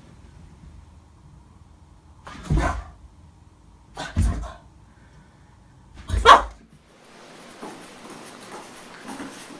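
Boston terrier barking three times, about one and a half to two seconds apart, the third bark the loudest, followed by a faint steady hiss.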